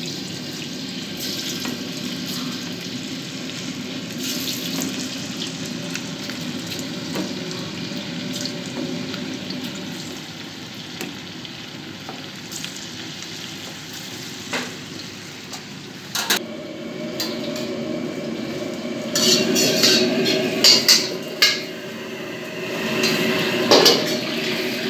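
Food frying in a wok with a steady sizzle. In the last few seconds a metal ladle knocks against the wok several times, louder than the sizzle.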